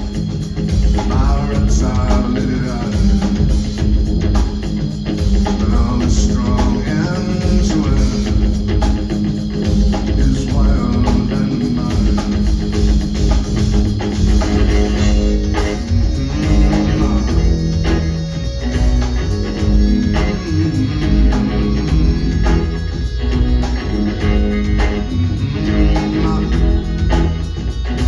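Live rock band playing a passage between sung lines, with guitar and bass guitar over the drums.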